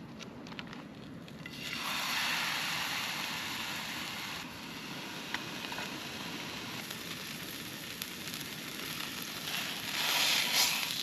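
Food sizzling in a hot frying pan on a backpacking stove: the hiss starts suddenly about two seconds in as the food goes into the pan, runs on steadily, and swells louder near the end.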